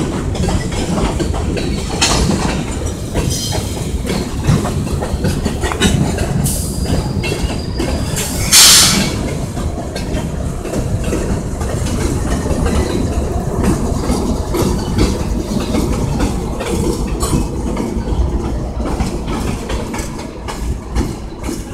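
Kansas City Southern de México freight train rolling past: gondola cars clattering over the rail joints with a steady low rumble, followed by locomotive 4665. About eight and a half seconds in comes a brief loud hiss.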